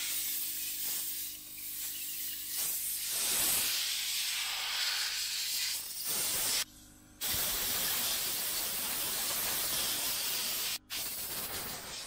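Compressed-air blow gun hissing as it blows dust out of a radiator core. The air cuts off briefly about seven seconds in and again for a moment near the end.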